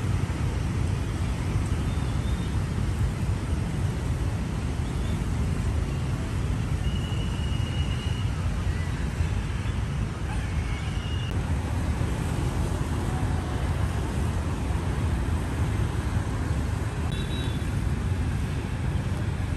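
Steady outdoor city ambience: a continuous low rumble of road traffic, with a few brief faint high tones.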